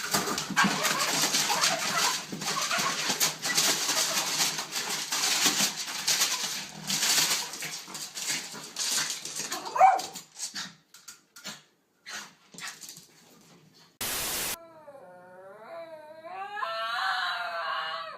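Dense rustling and clicking noise for about ten seconds, then a few scattered clicks, a short burst of hiss, and a dog whining in a high, wavering voice near the end.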